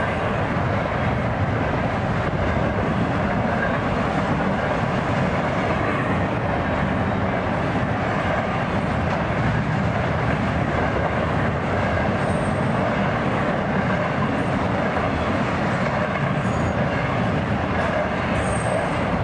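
Double-stack intermodal freight cars of a Florida East Coast Railway train rolling past: a steady, unbroken rumble of steel wheels on the rails.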